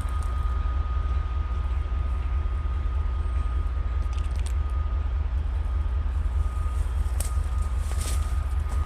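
Diesel locomotive engines idling: a steady low rumble with a steady high whine over it. A few light clicks come partway through and near the end.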